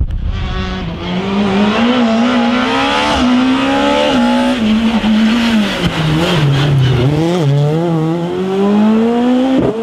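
Rally car engine at high revs through a special stage, its pitch wavering as the driver works the throttle, dropping about six seconds in as the car slows, then climbing steadily under hard acceleration near the end.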